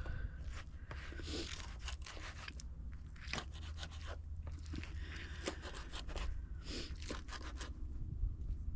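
A knife slicing food on a cutting board: irregular crunching and scraping strokes.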